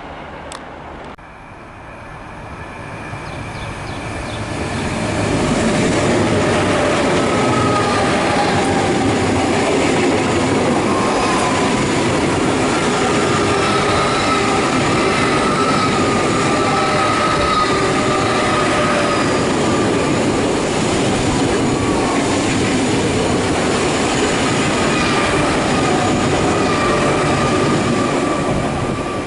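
A long train passing close by on the main line. It builds up over the first few seconds, runs loud and steady for about twenty seconds with thin squealing tones from the wheels above the rumble of the wagons, then begins to fade near the end.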